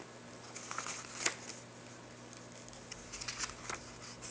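Paper pages of a children's picture book being turned, with short rustles about a second in and again past the three-second mark.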